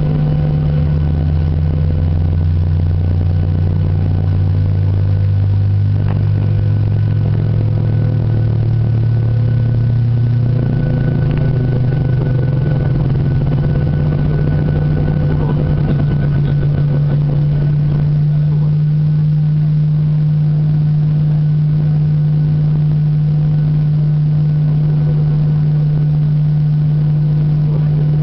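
Boeing 737-800's CFM56 turbofan engine starting, heard from inside the cabin: a steady low hum with a lower tone that rises over the first ten seconds or so, then settles into a steady idle drone.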